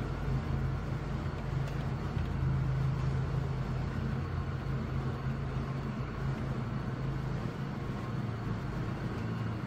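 A steady low hum with a noisy rumble beneath it, unchanging throughout, with no distinct clicks or knocks standing out.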